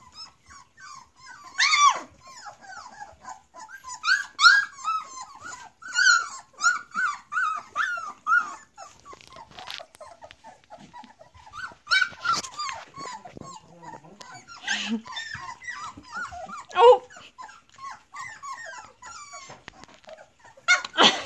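A litter of young Collie–Saint Bernard–Great Pyrenees cross puppies crying, many short high-pitched whimpers and yips overlapping, with a few louder squeals.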